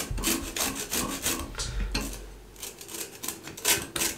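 A lemon being grated on the fine side of a stainless steel flat grater to take off its peel as zest. Quick rasping strokes come about four a second, with a short pause about two seconds in.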